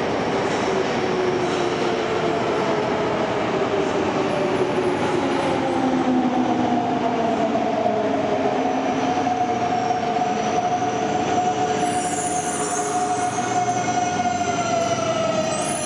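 Yokohama Municipal Subway 3000A-type electric train running into an underground station: rumble of wheels on track with an electric motor whine that slides slowly in pitch, and a high squeal coming in about twelve seconds in as it slows along the platform.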